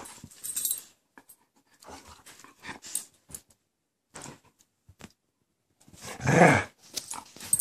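Dog at play with a kitten: soft scuffles and rustling, then a short low play growl about six seconds in.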